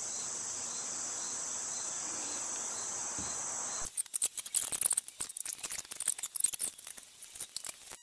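Crickets trilling steadily for about four seconds. The sound then cuts off abruptly to a quick, irregular run of clicks, taps and rattles as small metal and plastic carburetor parts are handled on the workbench.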